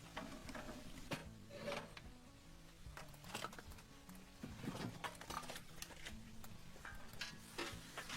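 Quiet background music with short low notes, under scattered light clicks and rustles.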